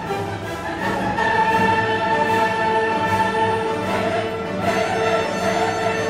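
Orchestral classical background music with long held notes.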